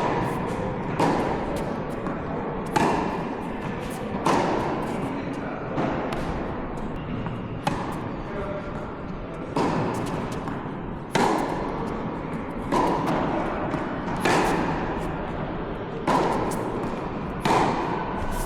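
Tennis balls struck back and forth by rackets in a rally: a sharp hit about every one and a half seconds, with the ball's bounces between, over steady background noise.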